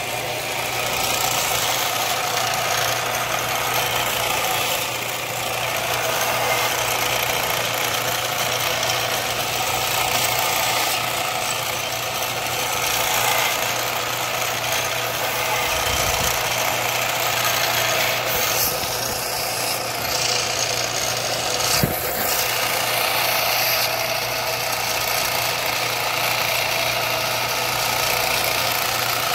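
Belt sander running steadily with a knife blank held against the belt: a constant motor hum under a hissing grind, with a couple of brief knocks in the second half.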